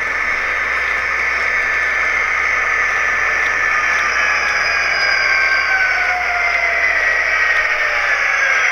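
Sound decoder of a Walthers HO scale EMD SD60 model locomotive playing diesel running sound through its small onboard speaker. The sound is a steady, hissy rumble with whining tones that slowly fall in pitch as the model rolls along.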